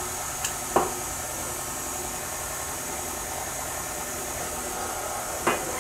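KitchenAid stand mixer running steadily, its beater working crumbly shortbread dough as eggs are added one at a time. A few short light knocks sound over it, one a little under a second in and one near the end.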